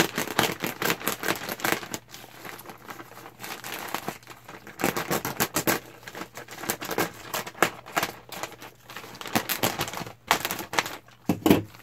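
A mail-order package of T-shirts being opened by hand: packaging crinkling and tearing, with many irregular sharp clicks and rustles. The handling is sparse at first and grows busy about five seconds in.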